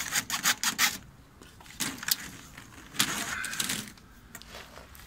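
A hacksaw cutting through white flexible corrugated plastic conduit: a quick run of saw strokes in the first second, then two longer scraping sounds about two and three seconds in.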